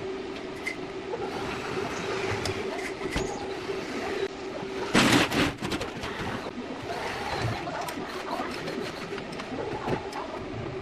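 Electric hand drill running with a steady whine that stops after about four and a half seconds, followed by a loud metallic clank and irregular clatter of metal being handled.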